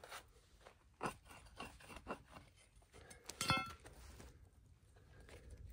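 Hand tools working stony dirt: a few soft knocks and scrapes, then about three and a half seconds in a sharp metallic clank with a short ring as the steel head of a digging hammer meets the ground.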